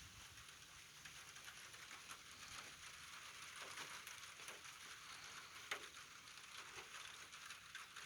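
Light rain pattering faintly, a steady hiss of many small drop ticks.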